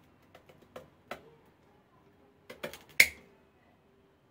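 Pruning shears cutting through a woody ombú trunk: a few small clicks as the blades bite, then a quick run of clicks ending in one loud sharp snap with a short ring about three seconds in, as the blades cut through and close.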